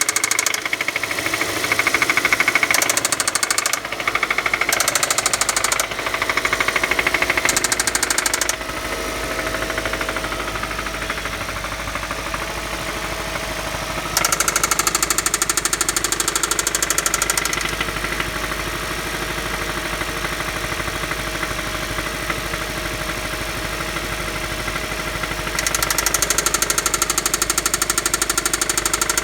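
Engine with a spun rod bearing on cylinder 1 running with a fast, even knock, brought up in several louder revs: four short ones early, then longer ones about halfway and near the end, settling back to idle between them.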